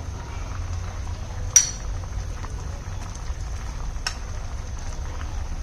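A metal utensil clinking sharply against cookware twice, once loudly and once more faintly, over a steady low rumble.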